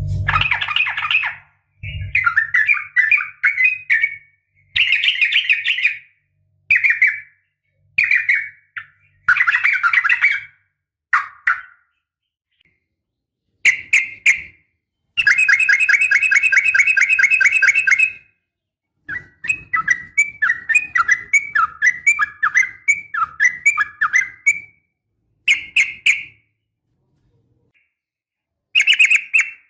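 Yellow-vented bulbul (trucukan) giving bursts of quick, bubbly chattering calls, each lasting one to three seconds and separated by short pauses. About halfway through comes a longer, fast, even trill. These are the calls sold as a female calling to males, used to rouse a caged male.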